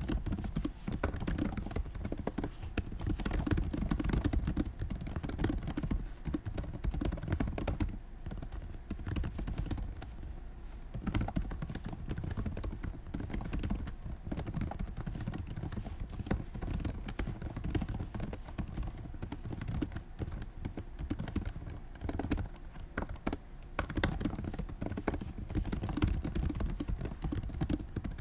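Continuous typing on a computer keyboard: a quick, irregular run of keystroke clicks, easing off briefly about ten seconds in.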